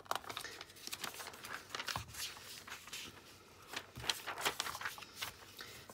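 Paper rustling and crinkling as a printed catalogue and its brochure are handled and their pages turned, in a string of short, irregular scrapes.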